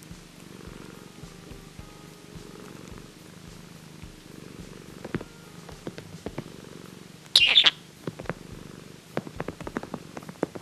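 Scottish Straight cat purring steadily. About seven and a half seconds in there is one short, loud, high chirp from a budgerigar, and a run of small sharp clicks follows near the end.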